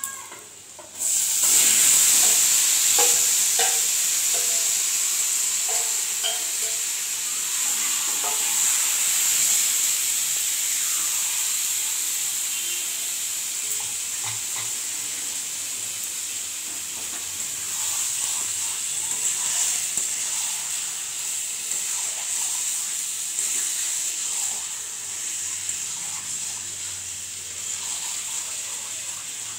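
Chicken pieces dropped into hot oil in a kadai, setting off a loud sizzle about a second in that slowly dies down. A flat spatula clicks and scrapes against the pan as the pieces are stirred.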